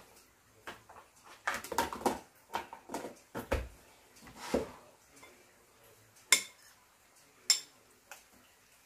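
Dishes and cutlery clattering: a run of knocks and rattles, then two sharp, ringing clinks about a second apart and a smaller click after them.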